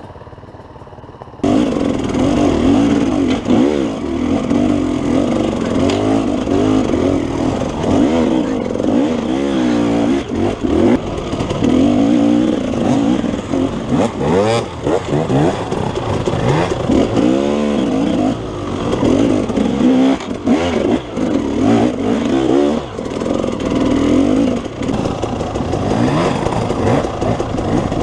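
KTM enduro dirt bike engine revving up and down repeatedly as it is ridden over rough, rocky trail. It is quieter for the first second and a half, then suddenly much louder.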